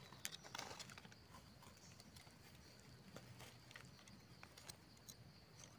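Near silence, with faint scattered clicks and rustles, a little stronger just after the start: hands and a small knife working at a wild mushroom's stem in dry leaf litter.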